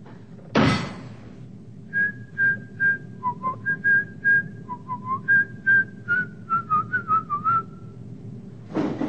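A person whistling a quick tune of short, separate notes that hop between a higher and a lower pitch and wander downward at the end. A loud, short burst of noise comes about half a second in, and another near the end.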